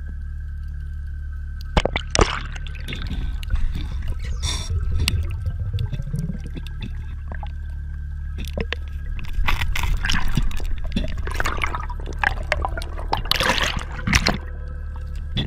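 Water gurgling and sloshing heard through an underwater camera, with scattered clicks and knocks over a steady low hum. The water noise swells around two seconds in, again around ten seconds, and most strongly just before the end, when the camera is at the surface among bubbles.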